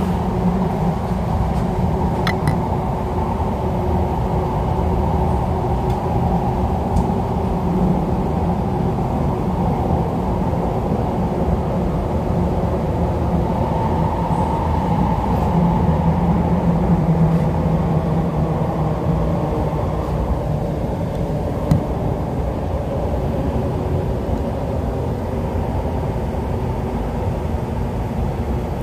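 MTR East Rail line R-Train electric multiple unit running at speed, heard from inside the car: a steady rumble with a hum from the running gear and motors, swelling a little about halfway through.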